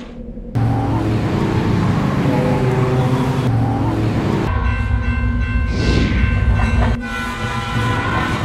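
Cartoon train sound effect: a train rumbling along, starting suddenly about half a second in, then a horn sounding with steady held tones for the second half.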